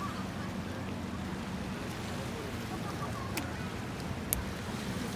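Riverside city ambience: a steady low hum under a wash of noise, with faint distant voices. Two short sharp clicks come late on, the second the loudest.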